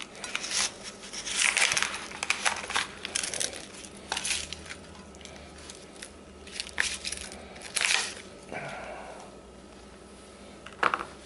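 A spatula scraping a slice of pie out of an aluminium foil pie pan onto a plate, the thin foil crinkling as the pan is tipped and held. Irregular scrapes and clicks, quieter for a couple of seconds near the end.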